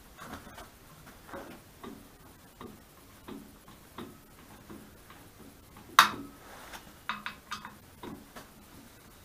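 Buttons being hand-screwed and moved on aluminium Cole jaws: scattered light clicks and small metallic taps, with one sharp clack about six seconds in and a quick run of clicks just after.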